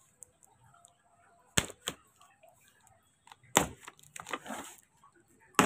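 Cardboard box being pulled open: two short snaps about a second and a half in, then a louder crack with rustling of cardboard in the middle, and another sharp crack at the end, as the taped flaps tear loose.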